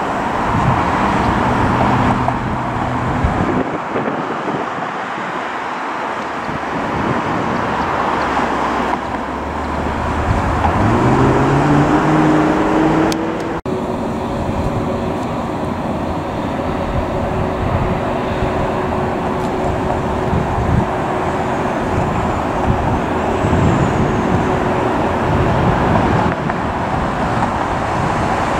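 Airbus A321 jet engines running at taxi power, with a rising engine whine about ten seconds in. After a cut, a Dornier 328's turboprops taxiing, with a steady propeller tone over the rumble.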